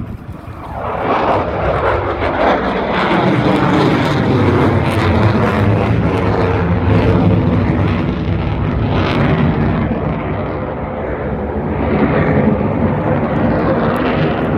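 Military display aircraft flying past. Its engine noise swells about a second in with a falling pitch as it passes, then carries on as a loud, steady drone.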